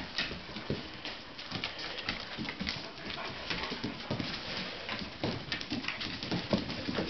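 Puppies nursing and moving about on a tile floor: a busy run of small clicks and smacks from suckling and claws on the tiles, with a few short puppy sounds.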